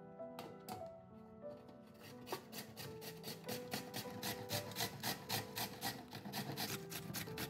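A potato being grated on a metal box grater: short rasping strokes, a few at first and then a steady run of about three a second from about two seconds in, over background music.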